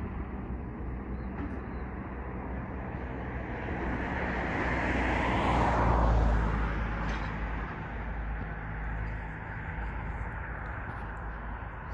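A vehicle passes by outdoors: its sound swells, is loudest about six seconds in, drops in pitch and fades. Under it runs a steady low engine hum.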